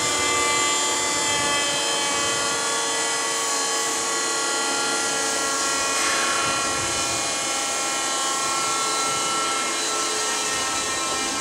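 Keikyu 2000 series train's 4MT rotary air compressor running. It makes a steady whine with many tones sounding together.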